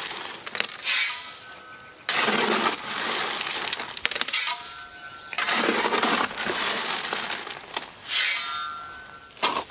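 A shovel scooping gravel from a wheelbarrow and tipping it around the base of a wooden post, a grating, crunching scrape with each load. One scoop is ending at the start and three more come about three seconds apart.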